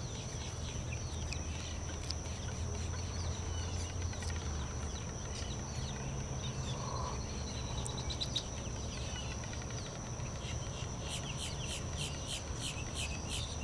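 Wetland birds calling: many short high calls, coming in a quick run of about four a second near the end, over a steady high-pitched whine and a low rumble.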